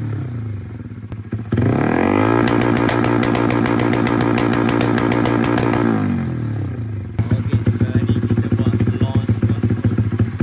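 Motorcycle engine with an aftermarket exhaust, revved on the stand. It drops to idle, is revved up hard about a second and a half in and held high for about four seconds, then falls back to an uneven, pulsing idle.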